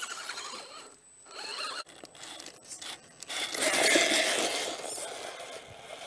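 Radio-controlled scale crawler trucks running over dirt and rock, with electric motor and gear whine and tyres scraping; loudest about four seconds in as one truck drives right over the microphone.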